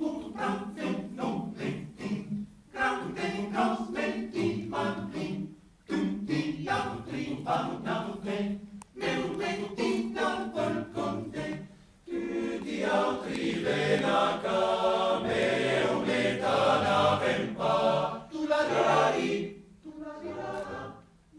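Male choir singing an Italian alpine folk song a cappella in close harmony. Phrases are broken by short breaths. The singing swells louder about halfway through and eases off near the end.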